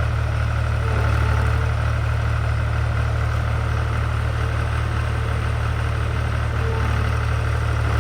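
Forestry skid steer's engine idling steadily with a deep, even hum.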